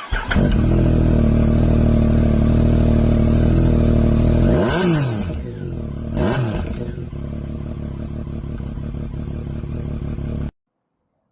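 Yamaha MT-09 inline-three engine with the exhaust baffle removed, loud and open-sounding. It starts up and runs at a fast idle, then takes two quick throttle blips about five and six seconds in. It settles to a lower idle and cuts off suddenly near the end.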